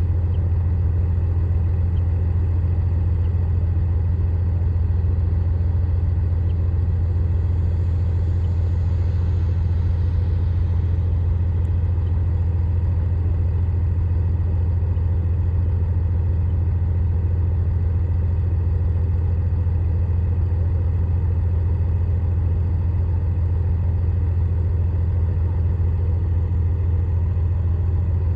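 Heavy diesel engine of an earthmoving machine running steadily: a deep, even drone that holds at the same pitch and level throughout.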